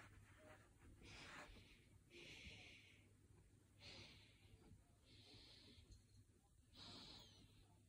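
Near silence with faint, soft breaths of a person, one roughly every second to second and a half.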